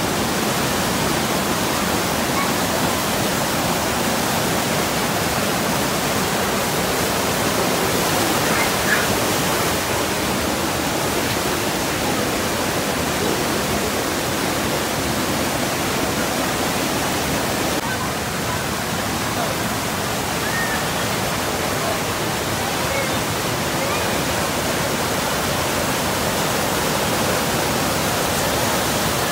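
River rapids rushing over rocks: a loud, steady whitewater rush, with a slight dip about two-thirds of the way through.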